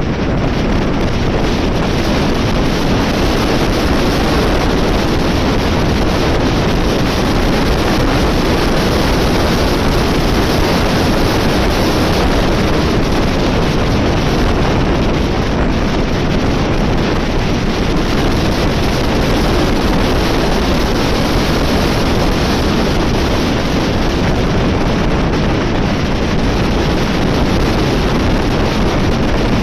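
Loud, steady wind noise blasting the microphone of a camera on a motorcycle riding at speed.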